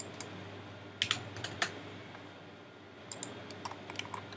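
Computer keyboard typing with clicks: a few sharp key or mouse clicks about a second in, then a quicker run of light key taps near the end.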